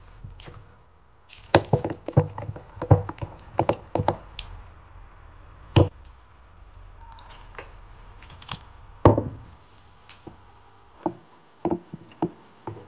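A metal spoon stirring thick batter in a glass bowl, clinking and knocking against the glass in irregular clusters of sharp taps, with a soft squelch of the batter between them; a few lighter taps come in quick succession near the end.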